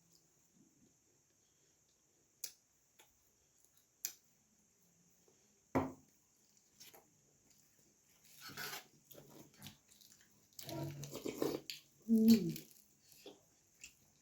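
Close-up eating sounds from puri and vegetable curry: scattered mouth clicks and smacks, then a stretch of wet chewing, ending in a short low hum from the eater.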